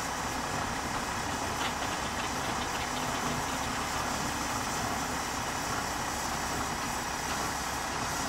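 Steam traction engines working hard under heavy load, a steady mechanical running with a few faint ticks.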